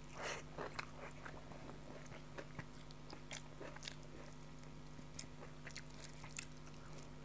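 A person chewing a mouthful of rice and fish curry eaten by hand: faint, irregular mouth clicks and smacks.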